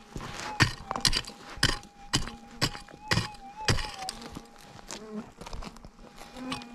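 A Minelab GPX 6000 gold detector's steady threshold tone, wavering briefly about three seconds in, over a run of sharp crunching hits about twice a second that stop about four seconds in.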